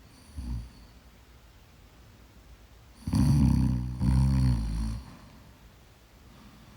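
A woman snoring in her sleep: a short, weaker snort about half a second in, then one loud, rattling snore lasting about two seconds from around three seconds in, with a brief dip in the middle.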